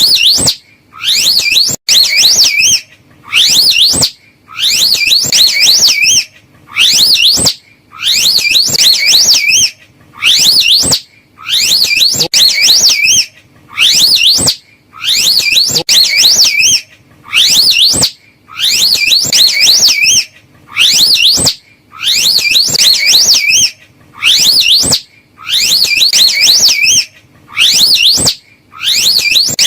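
Slow loris calls: rapid, high-pitched warbling whistles that wave up and down, in bouts of about a second, repeating every second or two with short gaps. Loud.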